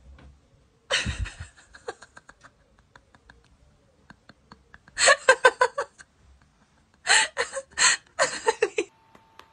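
A person laughing hard in repeated bursts of quick pulses, loudest around the middle and near the end.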